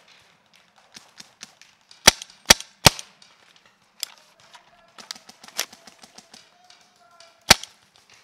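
Magazine-fed paintball sniper marker firing: three sharp pops in quick succession about two seconds in, then a single pop near the end, with fainter pops and clicks of other shots in between.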